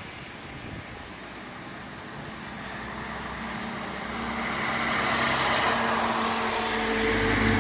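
Steady rain, then a car approaching on the wet road, its engine and tyre hiss growing louder through the second half.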